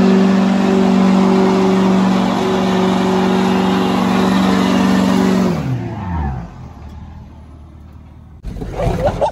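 A car engine held at high, steady revs over a loud hiss of spinning tyres in a burnout. About five and a half seconds in it comes off the throttle and the revs fall away. Near the end there is a sudden loud rush of noise.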